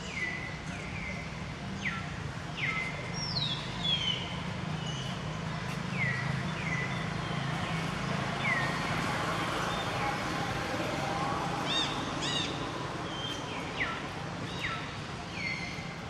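Birds calling in the forest: short whistled notes that slide down in pitch and level off, repeated irregularly about once a second, over a steady low background hum.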